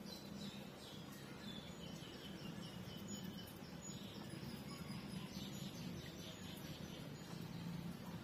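A bird chirping in the background: a quick run of short high chirps that step slightly lower in pitch over the first few seconds, then scattered chirps, over a steady low hum.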